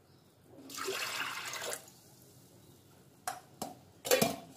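Water poured from a glass into a pressure cooker over washed toor dal, a splashing pour lasting about a second. Near the end come two light clicks and a louder knock of a vessel being handled.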